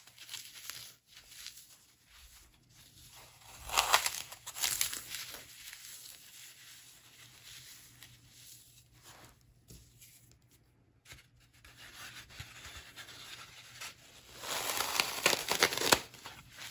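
Dry dark floral foam being broken and crumbled by hand: crisp tearing and crunching, loudest in two bursts about four seconds in and near the end, with softer crumbling in between.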